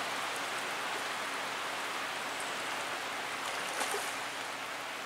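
Steady hiss of creek water running over rocks, with a faint click about four seconds in.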